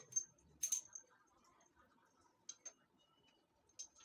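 A few quiet, sharp clicks and ticks, the loudest just before a second in, with others near the middle and near the end.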